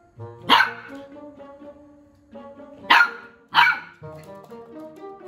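Golden retriever puppy barking three times: one bark about half a second in, then a quick pair about two and a half seconds later, over light background music.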